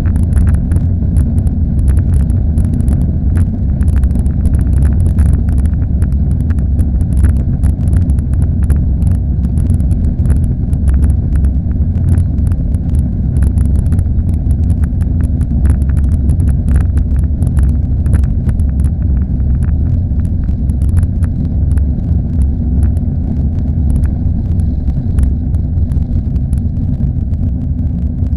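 Cabin sound of a Boeing 737-800 at takeoff thrust: its CFM56-7B turbofans make a heavy, steady rumble. Quick rattles and knocks from the wheels rolling down the runway run through it and stop about two-thirds of the way through, as the aircraft lifts off.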